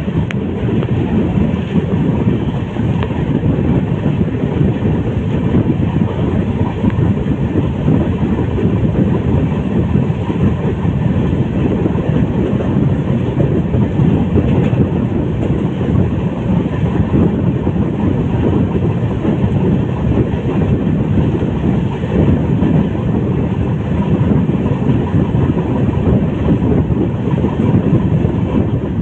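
Express passenger coach running at speed, heard from its open window: a steady rumble of wheels on rails with rushing air.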